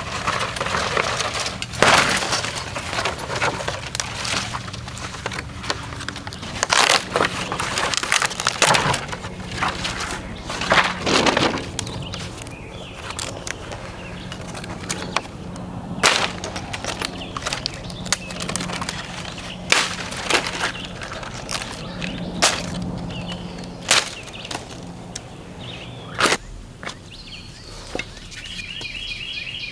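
Thin dead branches being snapped by hand for kindling, a long run of sharp, irregular cracks. They break cleanly rather than bending, the sign that the twigs are dry enough to burn.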